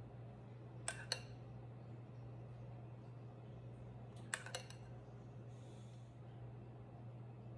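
Metal spoon clinking against a glass mixing bowl while scooping cream cheese mixture: two quick pairs of light clinks, about a second in and again about four seconds in, over a steady low hum.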